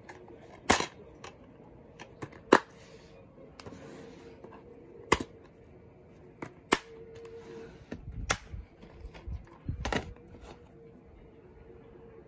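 A plastic DVD case is handled and snapped open and shut: about six sharp clicks spread out over the stretch, with softer rustling of the case between them.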